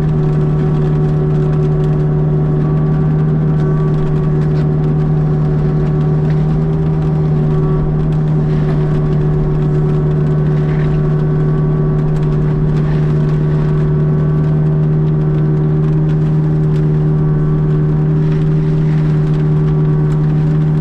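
Kubota U55-4 mini excavator's diesel engine and hydraulics running under steady load, a constant deep hum with a stack of even overtones, heard from inside the cab.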